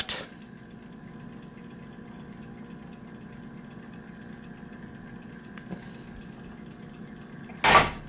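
A steady low hum with a faint click halfway through. Near the end comes a short, loud clunk as the brass roller bolt of the 1885 Gem time lock drops and rotates by gravity, releasing the dogged bolt work.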